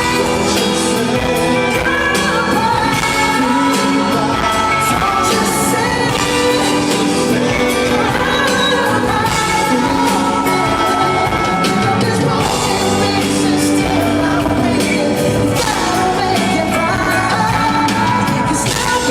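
Live pop ballad performed by a singer and band, the singing carrying on throughout over the full band.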